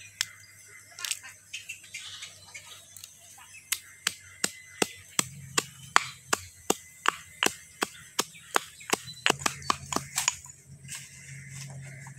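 Steady chopping: a blade striking a cutting surface again and again, about two or three strokes a second, with a few scattered knocks before it starts.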